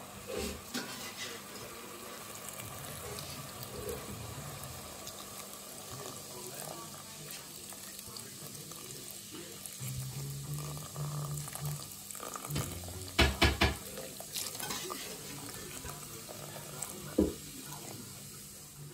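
Lager poured from a bottle into a hot pot of boerewors, onion and green pepper, splashing and fizzing over a steady sizzle. Several sharp knocks come in the second half.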